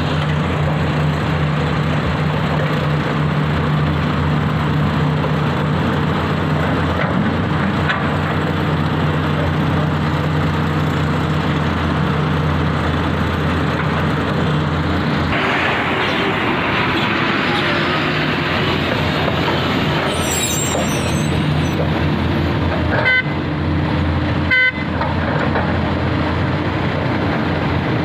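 Heavy diesel engines of excavators and a tipper truck running steadily during loading work. About halfway through the sound grows harsher and brighter, and near the end there are two short horn toots about a second and a half apart.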